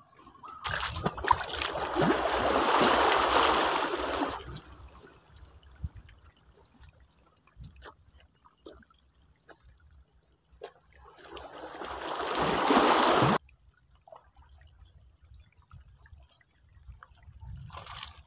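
Water splashing and trickling in two stretches of a few seconds each, the second building up and then cutting off abruptly, with faint scattered ticks between them.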